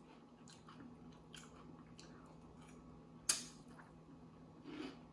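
Quiet chewing of a mouthful of Cap'n Crunch's Christmas Crunch cereal in milk, with soft crunches, and one sharp clink of a metal spoon against the glass bowl about three seconds in.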